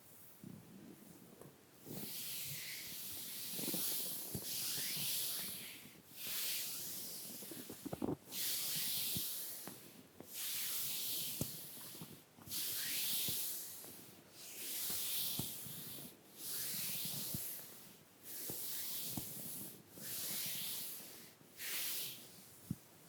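Soft makeup-brush bristles sweeping over the skin of a bare back in slow, even strokes, a light hissing brush sound about every two seconds, roughly ten strokes in all.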